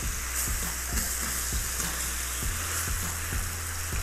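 Lamb pieces in a thick soy and oyster-sauce mixture sizzling in an enameled cast-iron braiser as they are stirred with a silicone spatula. The stirring gives soft knocks in a steady rhythm, about two or three a second, over the hiss.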